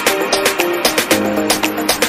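Background music with a quick steady beat and a clear melody line.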